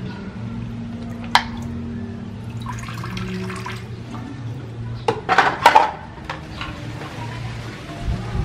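Water sloshing and splashing in a plastic basin as a hand moves through it and lifts out a rubber toy. There is a sharp click about a second and a half in, and a flurry of splashes around five to six seconds in.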